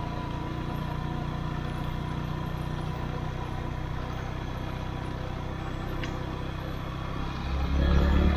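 Motorcycle engine running steadily while riding, growing louder near the end.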